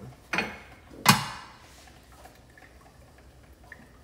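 Two sharp metallic clinks from an egg-poacher cup knocking against the pan as poached eggs are tipped out. The second clink is louder and rings briefly.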